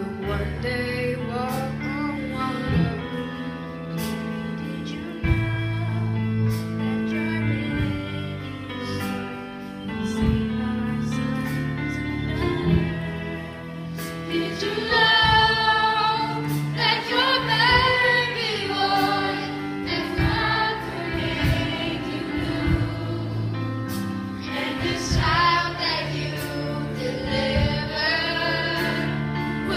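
Gospel choir singing with instrumental accompaniment: held chords over a bass line and a steady drum beat, the voices swelling loudest with vibrato from about halfway through.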